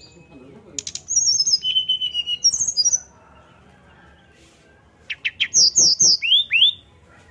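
Brown-chested jungle flycatcher singing its fluting song in two bursts of high, clear whistled notes. The first comes about a second in and the second about five seconds in, each lasting about two seconds.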